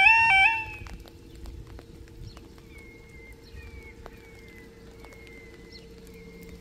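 Level crossing yodel alarm sounding its alternating two-tone warble, cutting off about half a second in as the barriers come down. A quiet steady hum follows, with faint clicks and short falling chirps every second or so.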